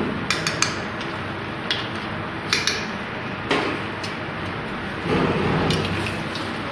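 Metal cooking utensil clicking and clinking against cookware, several sharp clicks over a steady hiss, with a longer, louder noisy stretch about five seconds in.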